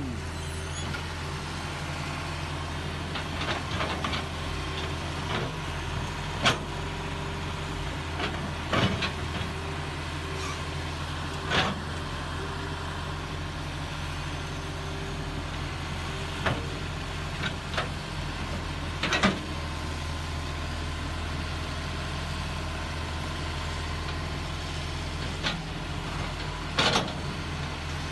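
Heavy excavator diesel engines running steadily, with sharp metallic knocks and clanks every few seconds as the machines work in the mud.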